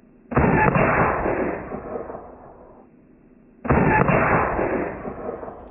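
Two sudden loud bangs about three seconds apart, each trailing off over about two seconds. They are shots fired with a de Laval nozzle projectile; the two bangs look nearly identical, like the same shot heard twice.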